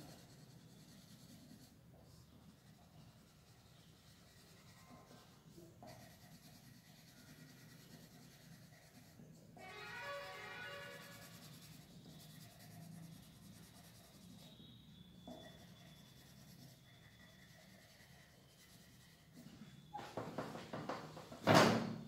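Colour pencil shading on drawing paper: faint, soft scratchy rubbing. About ten seconds in a brief pitched sound rises above it in the background, and near the end come a few louder knocks.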